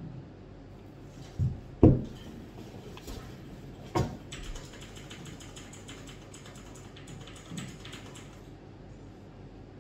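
Handling noises at a desk: a few sharp knocks, the loudest about two seconds in, then several seconds of rapid, fine scratchy clicking that stops near the end.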